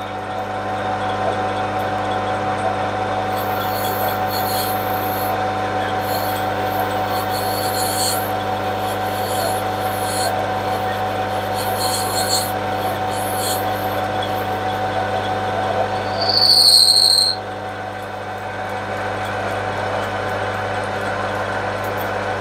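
Metal lathe running steadily while a boring tool cuts a recess inside a spinning brass pump body, with a steady motor hum and bursts of high cutting hiss. About three-quarters of the way through, a loud, high-pitched squeal sounds for under a second.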